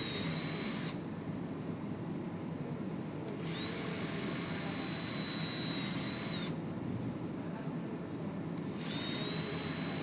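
Power drill driving screws in repeated runs: its steady motor whine cuts out about a second in, runs again for about three seconds in the middle, and starts once more near the end.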